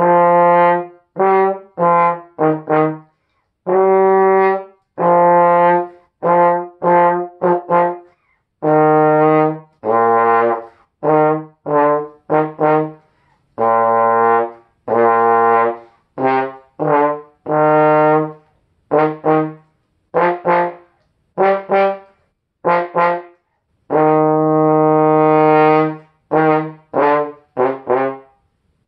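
Unaccompanied trombone playing a band part at a medium tempo: short tongued notes in quick clusters separated by rests, with a few longer held notes, the longest near the end.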